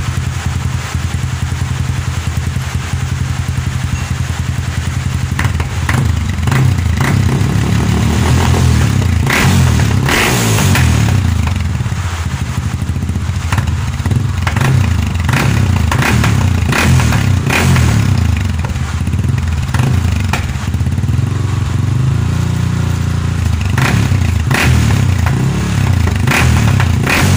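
Yamaha Scorpio Z 225 single-cylinder four-stroke engine running through a gutted open 'bobok' exhaust, steady at first, then blipped and revved from about five seconds in, with repeated sharp pops and crackles from the exhaust between revs.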